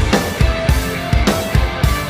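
Background rock music: distorted electric guitar over a steady drum beat.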